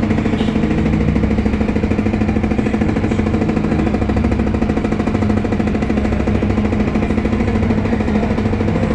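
An engine running steadily with a rapid, even throb and a low hum.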